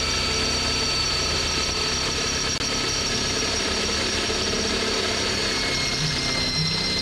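Power drill running steadily under load with a high motor whine that sags slowly in pitch, as it bores through the car's frame for a bolt-on subframe connector.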